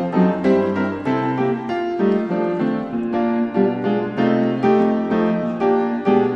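Background piano music, a melody of evenly paced struck notes.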